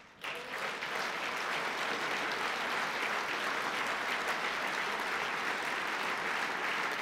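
Audience applauding in a large hall: the clapping breaks out just after the start and builds within about a second into steady applause.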